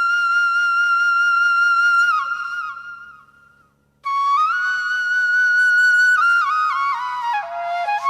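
Background instrumental music: a solo flute holds one long high note that fades away about halfway through, then after a short gap starts a new phrase that steps down in pitch.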